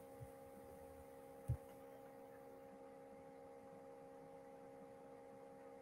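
Near silence with a faint steady hum made of a few fixed tones, and one soft low thump about a second and a half in.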